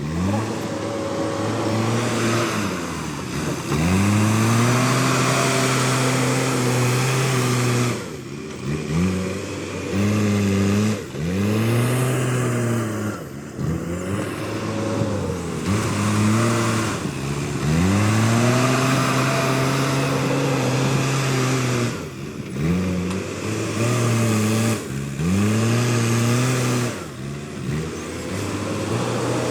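Backhoe loader's diesel engine revving up and down over and over as it works: a dozen or so rises in engine speed, some held for several seconds before dropping back.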